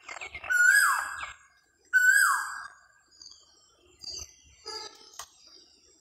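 Asian koel calling: two loud, clear whistled calls about a second and a half apart, each a held note that drops in pitch at its end. Fainter, higher chirps follow near the end.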